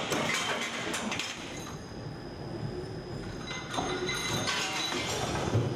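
Cold-forging heading machine running on the factory floor: a steady, dense metallic clatter with a faint high whine.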